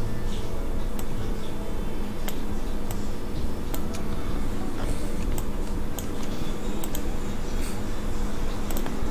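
Computer mouse and keyboard clicks, about a dozen at irregular intervals, over a steady low hum.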